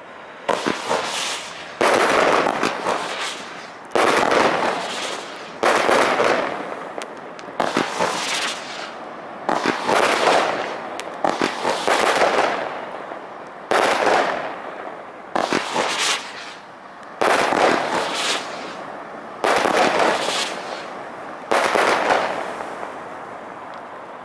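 Weco 27 Titans consumer firework cake firing shot after shot: about a dozen loud bangs, one every one to two seconds, each trailing off over a second or so.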